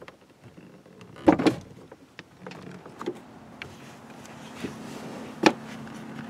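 Car door being opened from inside: the latch lets go with two loud clunks about a second in, then the door swings out, with another sharp click a few seconds later.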